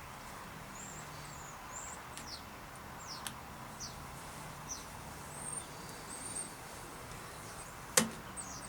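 Small birds chirping, with short high whistled notes and sweeps over a steady background hiss. A single sharp click about eight seconds in is the loudest sound.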